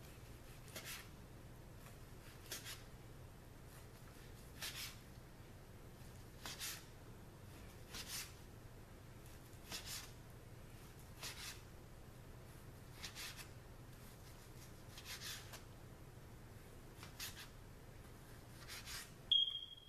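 A chef's knife slicing through a smoked pork butt and scraping down onto a plastic cutting board, one short scratchy stroke every second or two, about a dozen in all. A brief high squeak comes just before the end.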